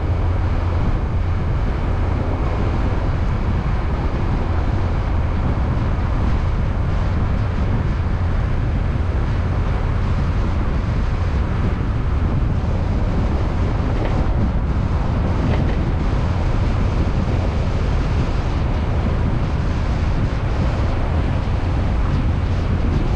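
Car driving along a road: a steady, deep rumble of engine and tyres, with wind noise over it.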